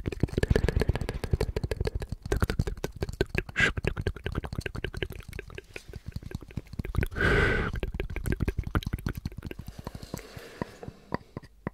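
Fingers tapping and scratching rapidly on a small turned wooden cup held close to the microphones, with a brief louder rubbing swell about seven seconds in; the taps thin to a few single knocks near the end.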